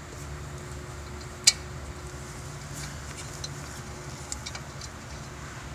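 Small metal clicks and ticks of a bolt being fitted by hand into a starter mounting hole, with one sharp click about a second and a half in, over a steady low hum.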